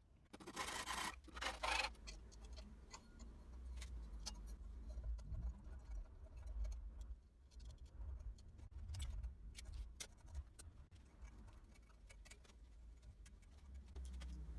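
Light handling sounds of bowstring strands being laid around a string-making jig: scattered faint ticks and rubbing over a steady low hum. In the first two seconds there are a few short, harsh, noisy bursts.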